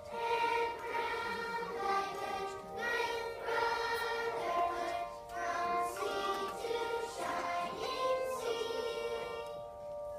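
Third-grade children's choir singing together, holding long notes in phrases.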